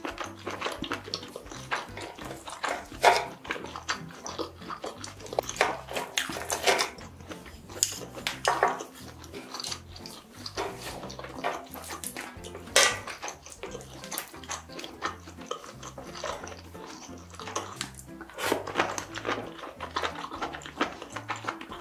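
Close-miked wet chewing and lip-smacking of sauce-coated food, a run of short sticky clicks and smacks, with now and then the click of wooden chopsticks picking food off the tray.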